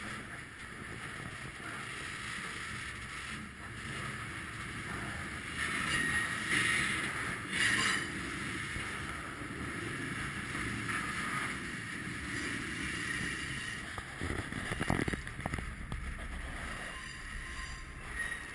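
Freight train rolling along the track, heard from aboard a car: a steady rumble of steel wheels on rail. A high metallic squeal flares about six to eight seconds in, and a heavier knock comes about fifteen seconds in.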